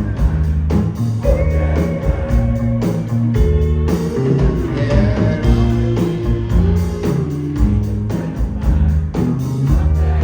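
A rock band playing live through an instrumental break: drums and bass keep a steady beat while an electric lead guitar plays held, bending notes.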